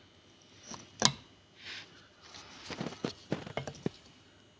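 Engine pistons and parts being handled on a workbench: a sharp knock about a second in, then a run of light clicks and taps.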